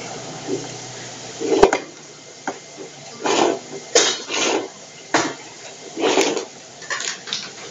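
A plastic utensil pressing and scraping cooked rice against a wide metal pan, flattening it into a thin layer for a crispy rice crust. It comes as a series of short scrapes and knocks, with a sharp click about a second and a half in.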